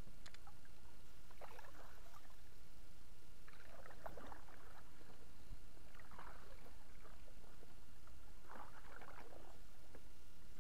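Kayak paddle strokes: four splashy dips of the blade into calm water, about every two and a half seconds, over a steady low rumble.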